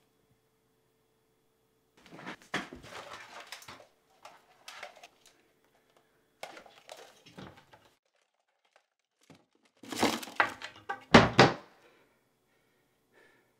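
Plastic network equipment being yanked from its cables and handled, with rustling and clattering, then several loud knocks from about ten seconds in as a wooden wall-cabinet door is shut.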